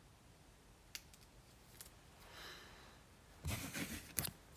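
Faint handling noises from trading cards and their packaging: a few light clicks, then a brief rustle with clicks near the end.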